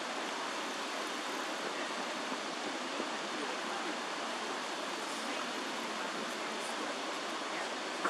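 Steady rushing of flowing water, an even hiss-like wash without rhythm.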